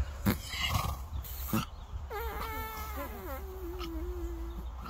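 A horse lying down gives one long, drawn-out call that wavers, drops in pitch and is held low before stopping near the end, after a few short knocks in the first second and a half.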